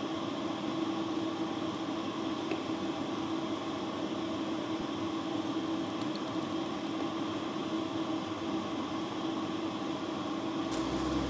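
Steady hiss and hum of a stovetop kitchen with a pot of water boiling, as cooked cilok are lifted out of it. Music comes in near the end.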